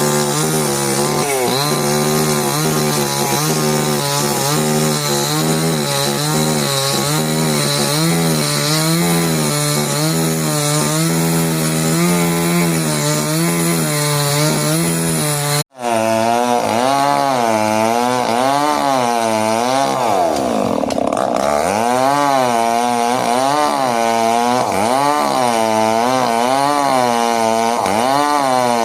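Two-stroke chainsaw cutting wood, its engine pitch rising and falling about once a second as the saw loads and unloads in the cut. The sound drops out for an instant just past halfway, then carries on the same way.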